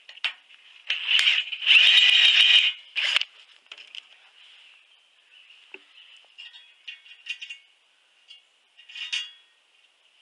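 Cordless drill with a countersink bit cutting into a steel bracket in a few short high-pitched bursts about one to three seconds in, deepening a countersunk screw hole. Light metal clinks and scrapes follow as the bracket is handled.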